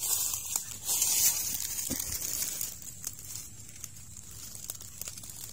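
Rustling and crackling of leaves and undergrowth, loudest in the first two and a half seconds, then fainter with scattered small clicks.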